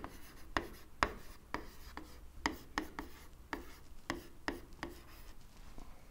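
Stylus writing by hand on the glass of an interactive display screen: a faint run of short scratchy taps and strokes, about two or three a second, that stops a little after five seconds in as the words are finished.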